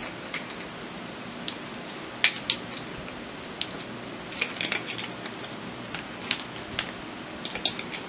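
Plastic screw caps being twisted onto plastic sports-drink bottles: a scatter of small clicks and ticks, with one sharper click about two seconds in.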